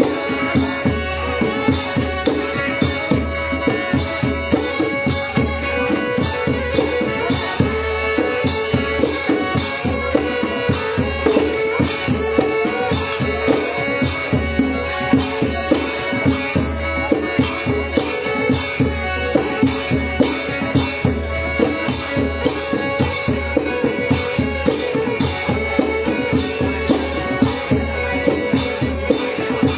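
Northern Khmer (Khmer-Thai) ritual ensemble music: hand drums and a rattling percussion keep a steady, fast beat under a held, unbroken melody line.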